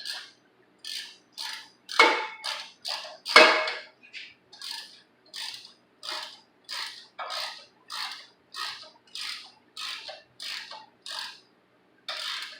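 Short mechanical clicking strokes repeating at about two to three a second, with two louder clatters about two seconds and three and a half seconds in.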